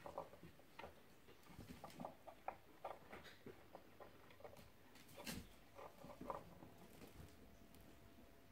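Faint scuffling and pattering of young kittens wrestling on a fleece blanket: soft paw and claw scrapes and rustles that die down near the end.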